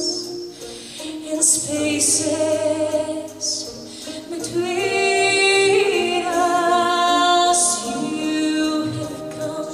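Symphonic music with singing: a woman's voice or voices over held orchestral chords, the notes changing every second or two, with short bright hissing accents a few times.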